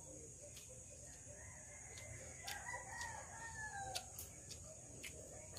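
A rooster crowing faintly: one long call that swells and then falls away, from about a second in to about four seconds in. A few faint clicks sound around it.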